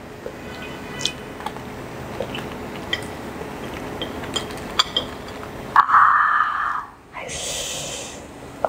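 Rice paper, lettuce and herbs handled by hand while a beef spring roll is wrapped and rolled: small crinkles and taps, then a louder rustling burst about six seconds in and a brief higher, hissy crinkle about a second after it.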